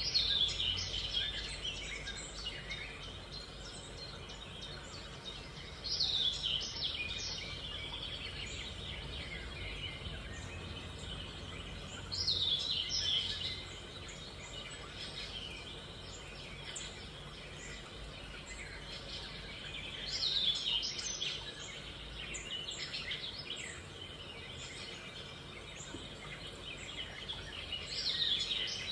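A bird singing the same short song of quick falling high notes five times, about every six to eight seconds, over steady background noise.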